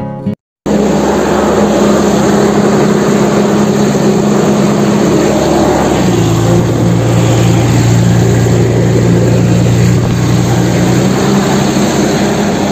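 Heavy-machinery diesel engine sound effect, running steadily; it comes in suddenly just under a second in and takes on a deeper tone about six seconds in.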